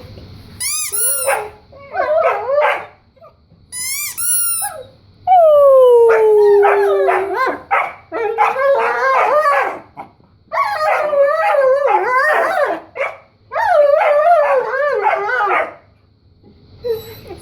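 Dogs howling and yowling in long warbling calls, one starting high and sliding down, mixed with two short runs of high-pitched squeaks in the first few seconds.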